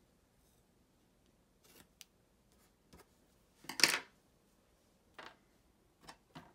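Scissors trimming washi tape on a planner page: a few faint snips and clicks, with one louder, brief rustling snip just before four seconds in.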